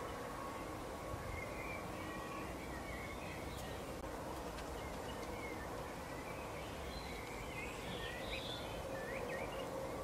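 Faint twittering of small songbirds, short chirps coming and going and busiest about seven to nine seconds in, over a steady low hum and outdoor background noise.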